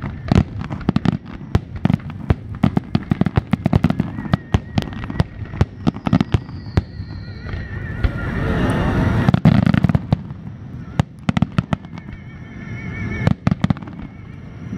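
Aerial firework shells bursting in quick succession: a steady run of sharp bangs with crackling, thickening into a dense, loud barrage about eight to ten seconds in.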